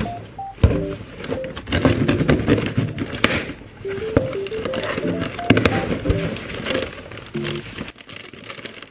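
Cardboard box being opened by hand, its flaps rustling, with foil-wrapped packs of coffee capsules crinkling as they are handled, over light background music with a simple melody.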